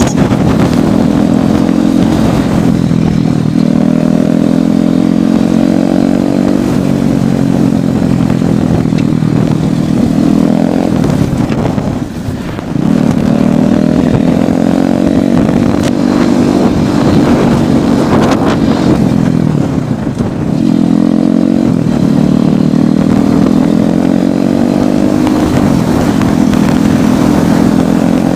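Royal Enfield Thunderbird's single-cylinder engine under way at speed, its note climbing slowly with the revs and dropping back at each gear change, with brief lifts off the throttle about 12 and 20 seconds in. Wind rushes over the microphone throughout.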